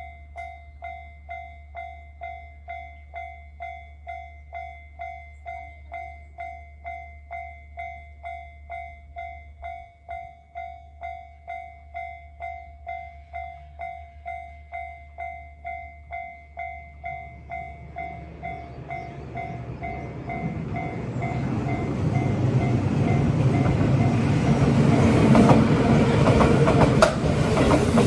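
Japanese level-crossing alarm dinging steadily at about two strikes a second. In the second half, a JR Kyushu 783 series electric limited express approaches and passes the crossing. Its rumble grows until it is the loudest sound and drowns out the bell.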